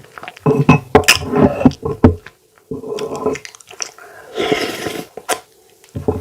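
Close-miked eating sounds: fufu being chewed in several bursts, with a sharp click about five seconds in.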